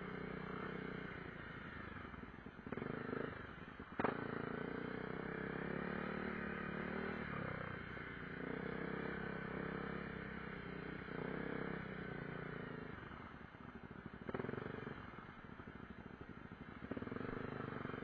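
Honda CRF250L dual-sport motorcycle's single-cylinder four-stroke engine running at low revs on a trail ride, rising and falling with the throttle. A sharp knock stands out about four seconds in.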